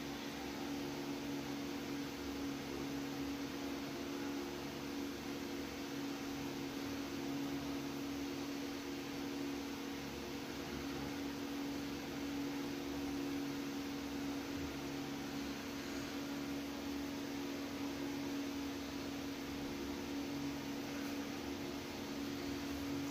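A small motor running steadily, giving an even low hum with no change in pitch or level.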